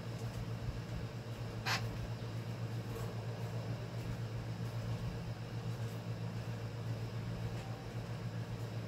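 Steady low hum with one short click about two seconds in.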